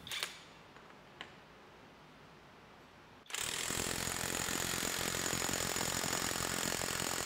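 Lagatuns brushless cordless impact wrench hammering a bolt in a torque-test rig. It starts about three seconds in and runs steadily after a near-quiet pause with one faint click. In use it has a sound the tester hears as brushed, or like something scraping or rubbing inside.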